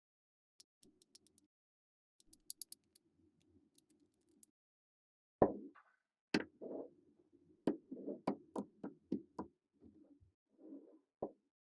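Small magnetic balls clicking together as they are handled and snapped into place. A few faint clicks come first, then from about halfway a run of louder, sharper clicks over a soft low rustle.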